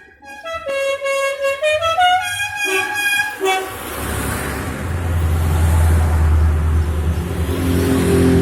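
A short tune of stepped, horn-like tones for about the first three seconds, then a vintage vehicle's engine passing close, a low rumble that grows louder and holds.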